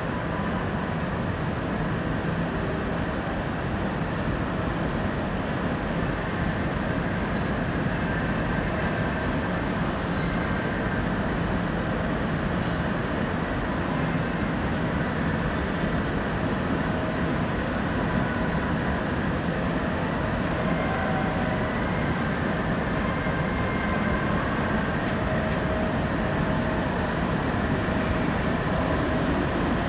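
Steady rumbling ambient noise, even in level throughout, with a few faint brief tones above it.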